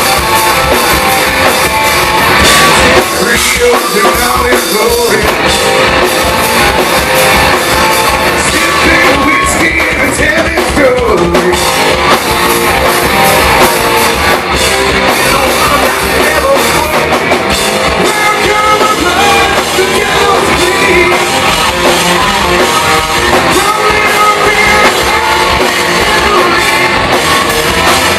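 Live rock band playing loud through a club PA: distorted electric guitars, drum kit and a male lead vocal, recorded from the audience.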